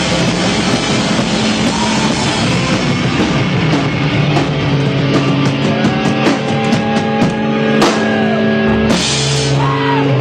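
Pop-punk band playing live: loud distorted electric guitars and drums. About halfway through, the guitars settle into long held chords for the song's final bars.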